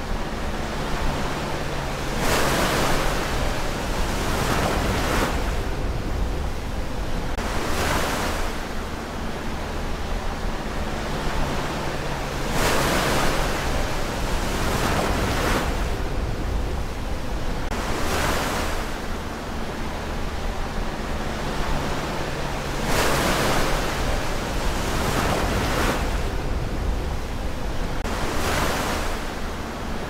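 Ocean surf: waves breaking and washing up on the shore, a louder surge about every three seconds over a steady rush of water.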